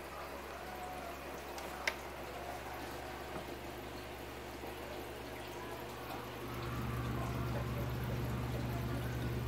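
Aquarium water pump running with a steady low hum and water bubbling and splashing; the hum gets louder about six and a half seconds in. A short click comes near two seconds in.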